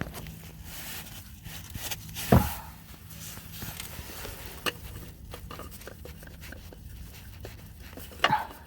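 Small clicks and clinks of hand tools being handled during an oil change, with one loud knock about two and a half seconds in, over a low steady hum.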